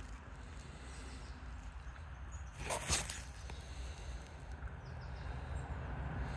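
Faint outdoor background noise with a steady low rumble, and a short burst of noise about three seconds in.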